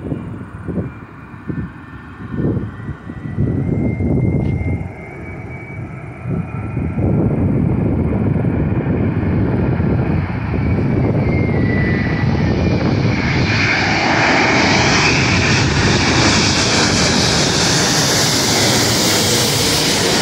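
Airbus A330-900neo airliner's Rolls-Royce Trent 7000 turbofans on final approach. A gusty low rumble at first gives way to a jet noise that builds steadily and turns into a loud roar with a faint whine slowly falling in pitch as the plane passes low overhead near the end.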